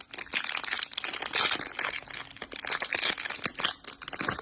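Toy packaging being opened by hand: a continuous, dense crinkling and crackling that stops near the end.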